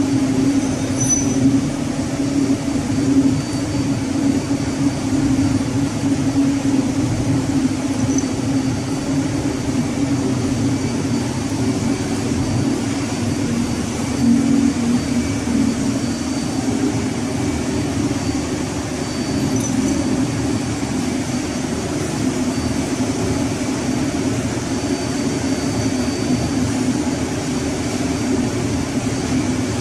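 Steady drone of a ship's running engine-room machinery, a constant low hum with a mechanical haze over it, and a few faint small clicks from the pump parts being handled.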